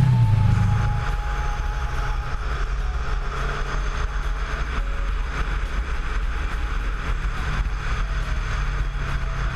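Kawasaki Versys 650 parallel-twin engine running at a steady pace under way, a low even drone.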